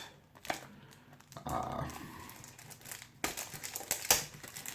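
Cologne box packaging crinkling and crackling as it is handled and unwrapped, the crackle growing denser about three seconds in.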